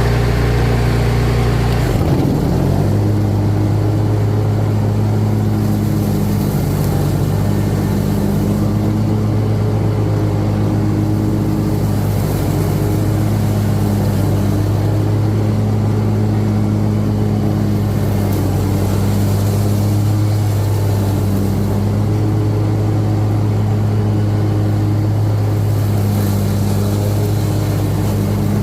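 Riding lawnmower engine running steadily at working speed. About two seconds in, its pitch dips briefly and then settles, as the engine takes the load of the mower blades being engaged.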